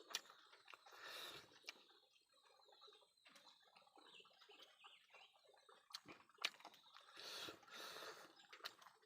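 Faint eating sounds: chewing with scattered sharp mouth clicks and smacks.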